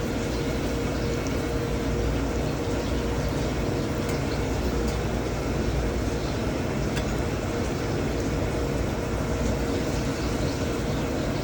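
A pan sizzles steadily on the stove with faint scattered crackles, over a constant low hum.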